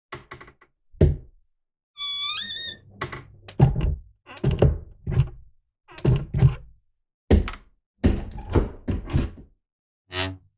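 Old creaky wooden cupboard door: a brief high creak about two seconds in, then a run of short wooden knocks and thuds as the door bangs and clacks against its frame, about a dozen in all, spaced roughly half a second to a second apart with silence between them.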